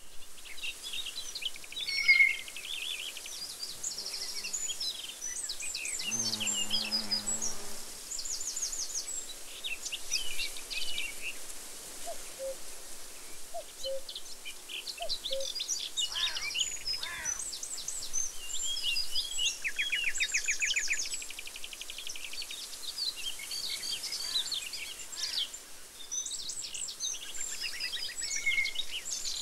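Bird chorus: many small songbirds chirping, whistling and trilling in overlapping phrases. About six seconds in, a lower drawn-out call sounds for a second or two beneath them.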